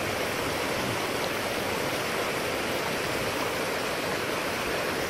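Guadalupe River water rushing over shallow rocks: a steady, even rush of flowing water.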